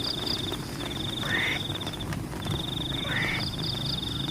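Frogs calling in a flooded rice paddy: two short rising croaks, set against a fast, high, pulsing trill that stops and starts again in long stretches, with a steady hiss of rain underneath.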